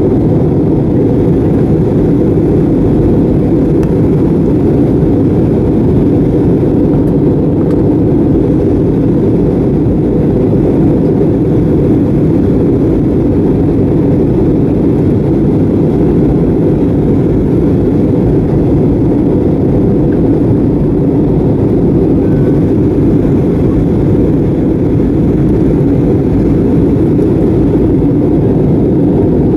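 Steady cabin noise inside an Airbus A320neo on its approach: an even, low roar of the engines and rushing air, heard from a window seat over the wing.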